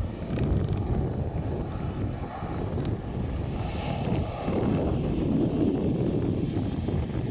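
Boeing 737-800's CFM56-7B jet engines at low taxi thrust as the airliner rolls along the apron: a steady rumble with hiss, with wind buffeting the microphone.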